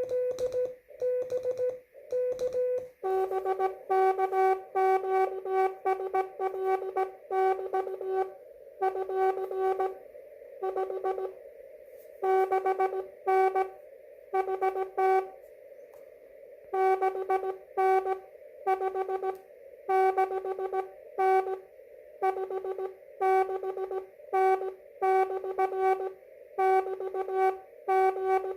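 Slow Morse code (CW) on an amateur radio: a steady tone keyed on and off in dots and dashes. For the first few seconds a clean tone is keyed. About three seconds in, the receiver's narrow band of hiss comes up and a lower-pitched keyed signal is heard over it.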